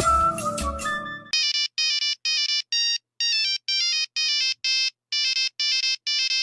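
Old mobile phone ringtone: a melody of short electronic beeps, about two or three notes a second in short phrases. It follows the tail of a fuller ringtone tune with a bass line, which cuts off just over a second in.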